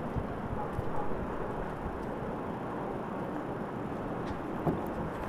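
Steady low outdoor rumble, like wind on the microphone, with a few faint ticks and no clear event.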